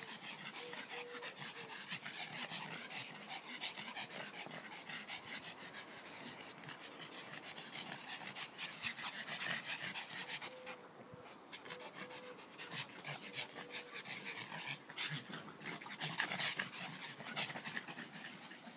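Small dogs panting rapidly after play.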